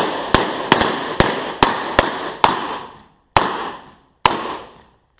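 Rapid revolver fire: about ten loud shots, each with a short echoing tail. They come quickly at first and slow near the end, with the last two about a second apart.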